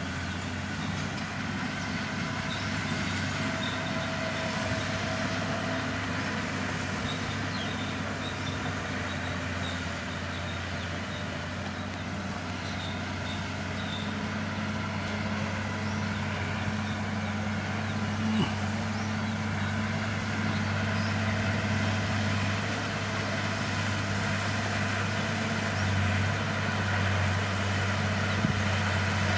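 Bulldozer's diesel engine running steadily with a deep, even hum, joined by a couple of short knocks about two-thirds of the way through and near the end.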